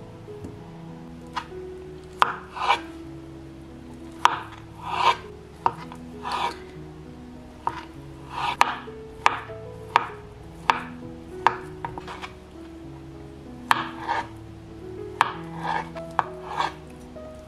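Chef's knife cutting peeled boiled potatoes into cubes on a plastic cutting board: irregular sharp knocks of the blade hitting the board, some with a short slicing swish, over quiet background music.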